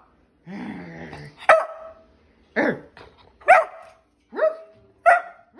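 Beagle-mix puppy vocalizing on its owner's "say boo" cue. It gives a low grumbling growl about half a second in, then barks five short times, about a second apart.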